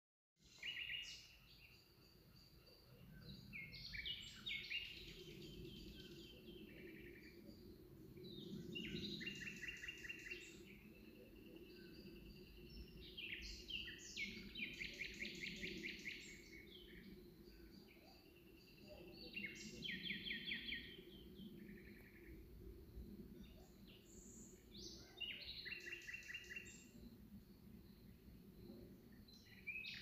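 Songbirds singing: quiet phrases of quick repeated notes recurring every few seconds, over a faint low rumble.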